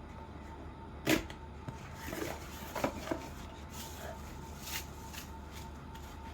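Cardboard and paper packaging of a shower head being handled: rustling and small clicks, with one sharp knock about a second in.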